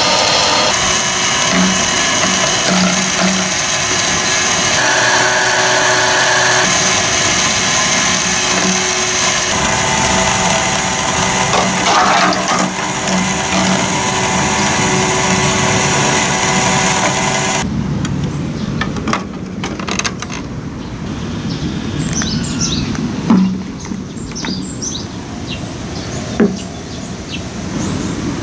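Battery-powered plastic marble-run escalator running: a steady motor and gear whine with rattling that cuts off suddenly about two-thirds of the way in. After it stops, a few sharp knocks and birds chirping.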